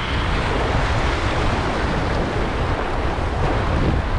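Sea surf washing over shore rocks, a steady rushing, with wind buffeting the microphone in a low rumble.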